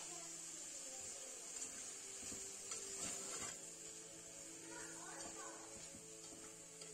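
Faint stirring of spiced mushrooms in an aluminium pressure cooker, a spoon scraping and clicking against the pot a few times, over a steady high hiss.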